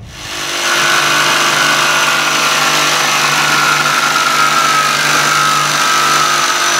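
DeWalt DCS334 20-volt XR cordless jigsaw cutting through a board. It rises to full speed within the first second, then runs steadily, its tone dipping slightly in pitch as the cut goes on.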